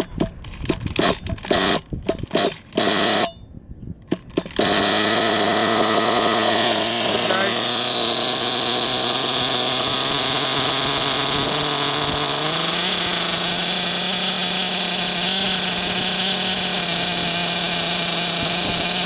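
SH 28 4.7cc two-stroke nitro glow engine of an RC car: a few seconds of short broken bursts, then it catches about four and a half seconds in and runs steadily, its note stepping up a little about twelve seconds in. It is being run in with the wheels still, set to run rich.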